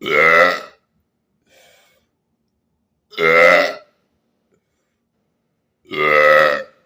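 A man burping on purpose: three loud, long belches, each lasting under a second, about three seconds apart.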